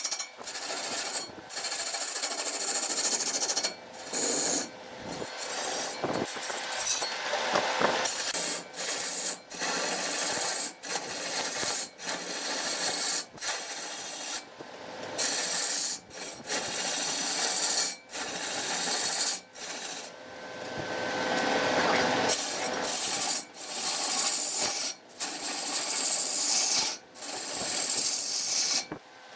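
A tool scraping against wood spinning on a lathe: a loud, hissing scrape that breaks off briefly every second or two.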